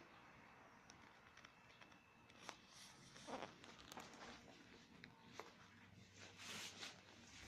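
Near silence: faint room tone with a few soft clicks and brief rustles.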